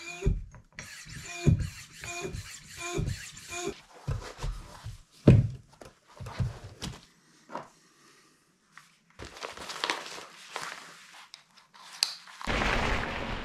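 Floor pump inflating a mountain bike tyre: a rhythmic run of pump strokes, each with a short squeak. Then scattered clicks, knocks and rustles as cycling shoes and helmet straps are fastened. A steady rushing noise comes in about a second before the end.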